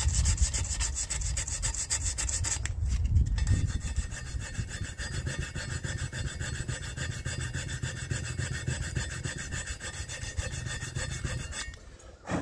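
100-grit sandpaper rubbed by hand in quick back-and-forth strokes over the lip of an alloy wheel rim, taking off corrosion spots. The rubbing stops shortly before the end.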